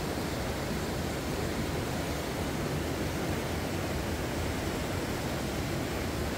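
River rapids rushing and cascading through narrow rock chutes, a steady roar of whitewater.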